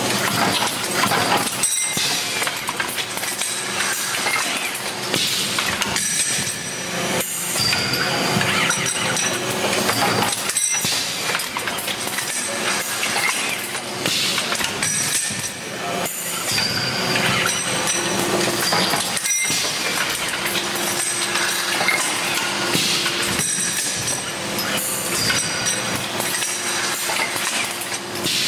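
Automatic cartridge assembly machine running: rotary indexing table and press tooling working steel bearing housings, with continuous metallic clattering and clinking and thin high tones over it.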